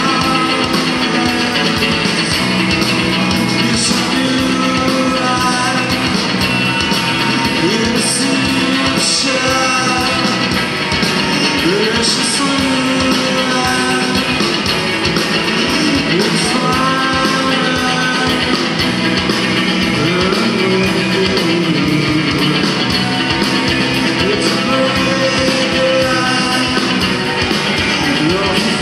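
Live rock band playing a loud instrumental passage on electric guitar, electric bass, drum kit with cymbals, and saxophone.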